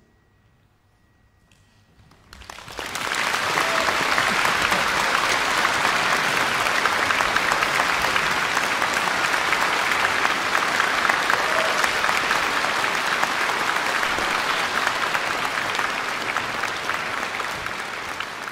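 After about two seconds of near silence, an audience breaks into steady applause, which tapers off slightly near the end.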